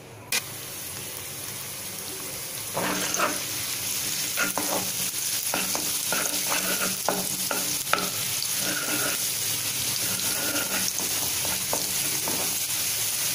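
Minced ginger and garlic sizzling in hot oil in a nonstick kadai, with a sharp click about half a second in. From about three seconds in, a spatula stirs the pan, knocking and scraping against it over the sizzle.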